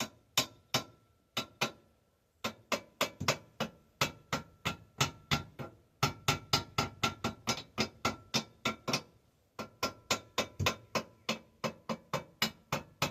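Hammer blows on metal in a quick steady run, about three a second, each with a short metallic ring, broken by two brief pauses. This is knocking at a stuck part on an old bicycle frame to loosen it after a soak of WD-40.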